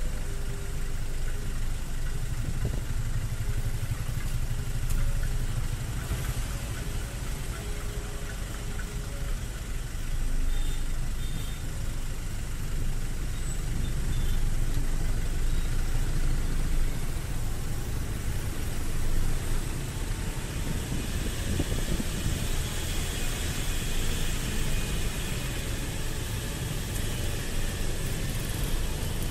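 Road traffic heard from a motorcycle: engines idling while stopped in a queue of cars and motorbikes, then, in the second half, the bike moving off with more road and wind noise.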